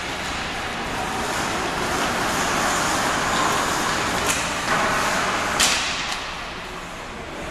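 Ice hockey play: a steady hiss of skates on the ice over rink noise, broken by sharp clacks of stick and puck, the loudest about five and a half seconds in. It grows quieter near the end.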